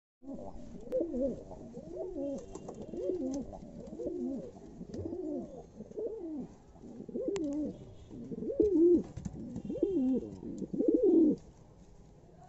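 Domestic pigeons cooing in a cage, a steady run of throaty, wavering coos about one a second that stops shortly before the end.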